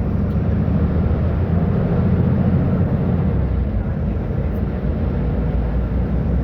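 Diesel engine of a Mercedes-Benz O500U city bus with a Voith automatic gearbox, running with a steady low drone that swells slightly a couple of seconds in.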